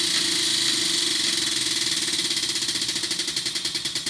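Tabletop prize wheel spinning, its pointer flapper clicking against the pegs around the rim in a rapid run of ticks that slows steadily toward the end as the wheel winds down.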